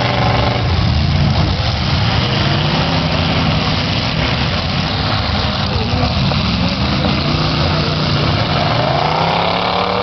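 Several demolition derby cars' engines running loudly together, with engines revving up and down near the start and again near the end.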